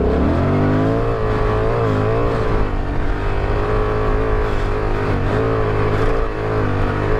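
Honda Transalp 750's parallel-twin engine pulling steadily under throttle through soft sand, its pitch rising and falling a little.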